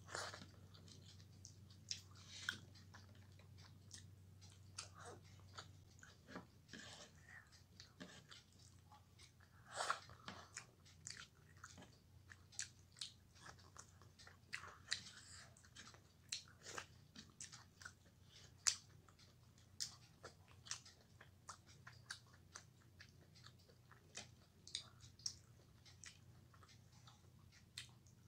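A person chewing mouthfuls of rice and fish curry eaten by hand: soft, irregular wet mouth clicks and smacks, a few every second.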